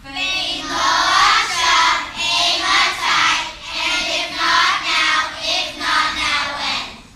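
Children's choir singing, loud and without accompaniment, in short pulsing phrases about every half second.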